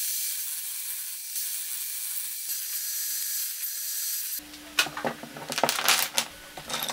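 Table saw cutting a thin strip of wood, a steady high hiss. About four seconds in this gives way to small wooden blocks and sticks clattering and knocking together as they spill onto a wooden workbench.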